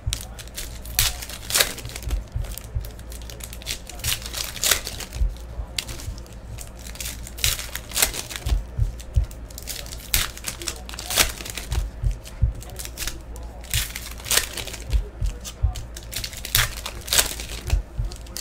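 Foil wrappers of Panini Prizm basketball card packs being torn open and crinkled by hand, with cards handled between them: irregular sharp crackles all the way through.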